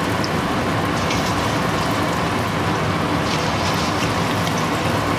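Coated chicken pieces sizzling steadily in hot oil as they are dropped in to deep-fry, with faint crackling.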